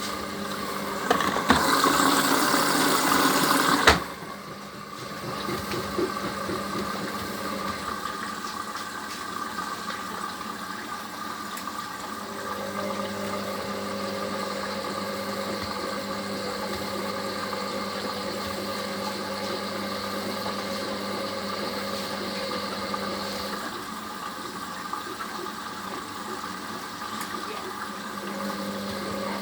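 Hoover HLW585DC washer-dryer filling with water for its first rinse. A loud rush of incoming water cuts off suddenly about four seconds in, and a steadier, quieter running follows, with a low machine hum that starts, stops and returns near the end.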